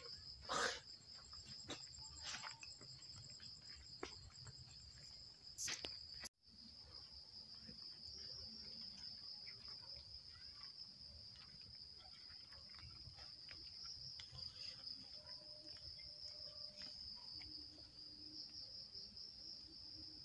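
Night insects chirring in a steady high-pitched drone, with a few sharp knocks in the first six seconds and a brief dropout about six seconds in.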